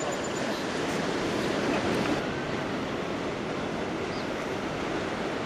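Steady rushing noise of ocean surf and wind, with no train heard; the hiss loses some of its top end about two seconds in.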